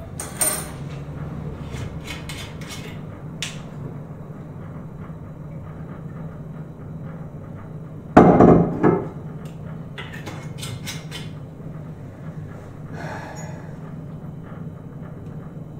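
A wine bottle and glass being handled on a kitchen counter: scattered light knocks and clinks, with one louder burst lasting about a second, about eight seconds in, over a steady low hum.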